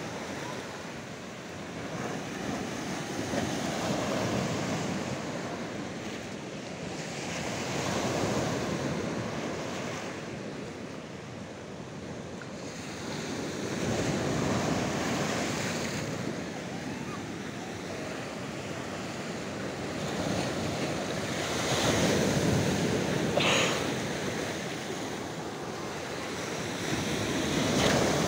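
Sea waves surging over a rocky shoreline and into natural rock pools, swelling and ebbing every few seconds, with a sharper splash about three-quarters of the way through. Wind on the microphone.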